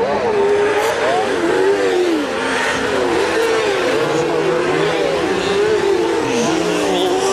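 Engines of several kart-cross cars racing past on a dirt track. Their notes overlap and keep rising and falling as the drivers rev and lift.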